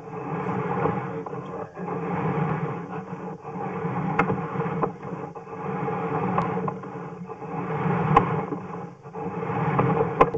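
Sewer camera push cable being pulled back out of the drain line, a rubbing, scraping noise that swells and fades about every two seconds, with a few sharp clicks.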